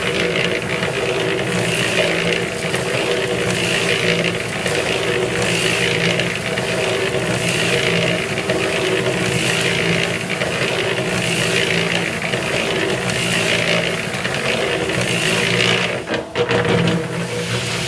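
Harbor Freight electric concrete mixer running, its motor and gear drive turning the drum steadily while the concrete mix tumbles inside in a swishing pulse a little under once a second. The sound dips briefly near the end.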